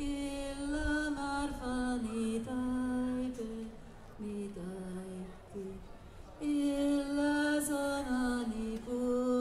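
A woman singing a Skolt Sámi leu'dd in a single voice, with long held notes that step down in pitch. She sings two phrases to the same melody, with a short breath between them about five and a half seconds in.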